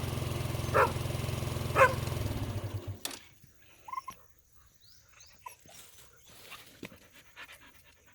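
An engine idling steadily with a dog barking twice over it; the engine is switched off about three seconds in, leaving a dog's few short whines and faint movement.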